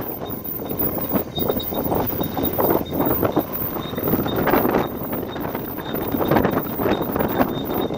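Wind buffeting the microphone on the deck of a fishing boat under way, in uneven gusts, over the low steady rumble of the boat's engine and the rush of the sea.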